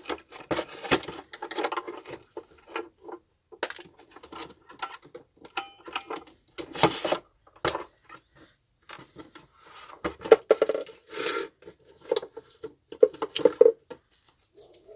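Plastic housing of a vacuum cleaner being handled and turned over during disassembly: irregular clicks, knocks and light rattles of plastic parts, with short scrapes.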